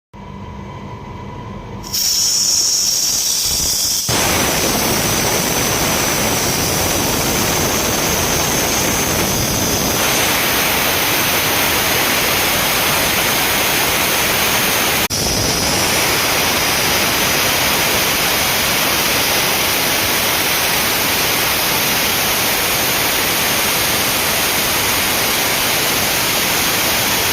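Compressed air rushing out of an air compressor's tank drain valve, blowing out the water that has collected in the tank, as a loud, steady hiss. It starts suddenly about two seconds in and grows fuller a couple of seconds later.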